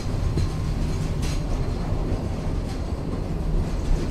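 Train running along the track: a steady low rumble with a few sharp rail clicks.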